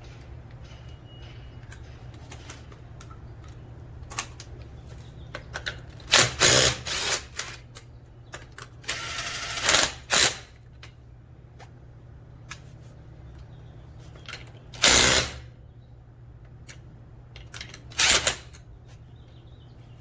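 Cordless impact wrench run in short bursts, four times, the longest about a second, with scattered clicks and clatter between them over a steady low hum.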